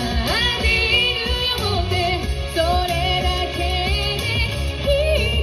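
A singer performing a song live, the sung melody gliding over a steady bass line and beat.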